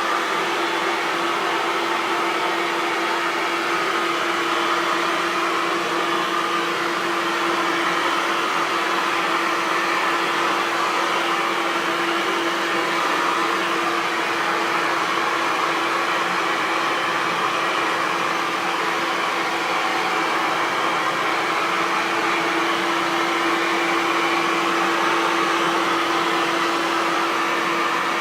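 Hair dryer running continuously at a steady speed: an even rush of blown air over a constant motor hum.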